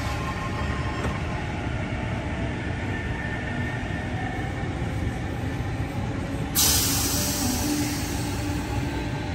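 Train running at the platform with a steady low rumble and a faint whine, then a sudden loud hiss about two-thirds of the way through that carries on to the end.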